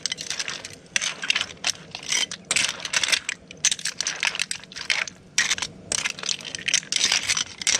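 Metal tongs tossing linguine with cockles and crab pieces in a stainless steel frying pan: quick, irregular clinks and scrapes of the tongs against the pan and the shells.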